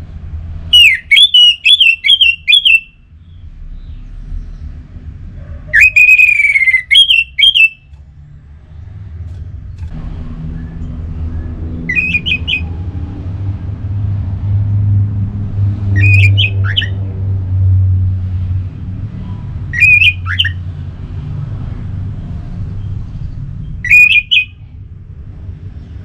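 Orange-headed thrush singing: two phrases of quick whistled notes in the first eight seconds, then short sharp calls about every four seconds. A low rumble comes up in the background about ten seconds in.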